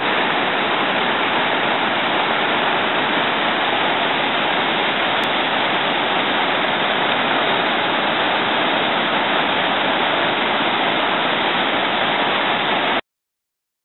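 Long cascading waterfall rushing steadily, a loud, even roar of falling water that cuts off abruptly about a second before the end.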